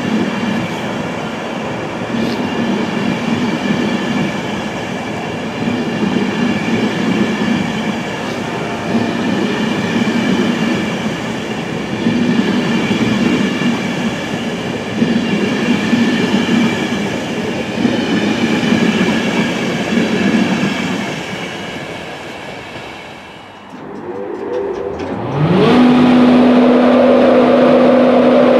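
InterCity 225 Mk4 coaches rolling slowly past, the wheels rumbling in a beat about every two seconds as each bogie goes by, with a faint steady whine over it. Near the end the noise dips, then the Class 91 electric locomotive comes alongside: a hum rises in pitch and settles into a loud, steady drone.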